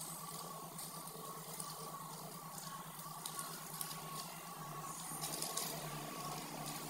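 Faint rustling and crinkling of a thin plastic bag as kittens paw and climb on it, over a steady low hum. The rustling thickens about five seconds in.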